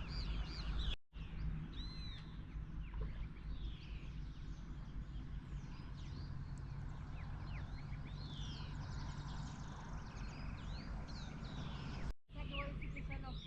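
Several wild birds chirping and whistling, with many short calls, some sweeping down in pitch, over a steady low rumble of wind. The sound cuts out completely twice, briefly: about a second in and near the end.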